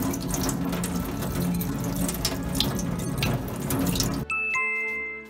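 Tap water running and splashing into a stainless steel sink while an ink-caked calligraphy brush is rinsed and worked under the stream to loosen dried sumi ink at its root. A little over four seconds in, the water sound cuts off suddenly, leaving only background music.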